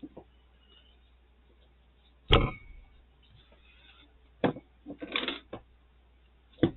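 Notebooks being set down and shifted on a tabletop: three knocks, the loudest about two seconds in, with a brief shuffle of handling between the last two.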